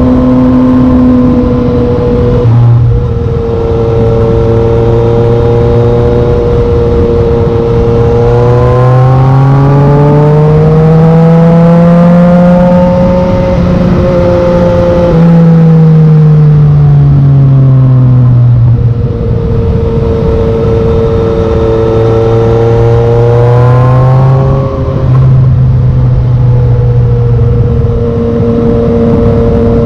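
Yamaha MT-09's inline-three engine through a Black Widow carbon full exhaust system, under way at steady revs. The revs climb for a few seconds about a third of the way through, then fall back, with a second short rise and a brief dip near the end.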